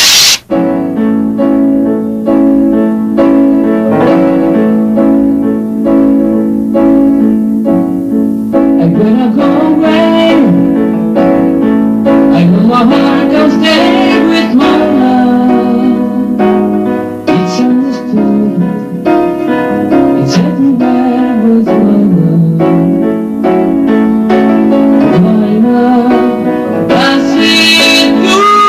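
Music: a song with keyboard or piano accompaniment, starting after a brief break less than a second in, with a singing voice coming in about nine seconds in.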